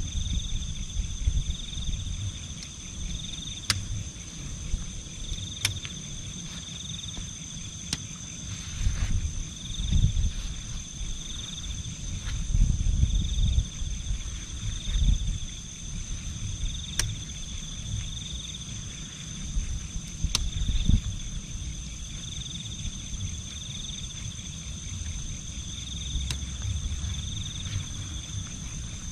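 Insects chirring steadily, one high continuous drone and a lower chirp that pulses about once a second. Underneath are low rustling and handling noise with a few sharp clicks.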